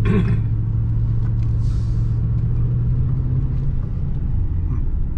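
A moving vehicle heard from inside its cab: a steady low engine hum under the road noise.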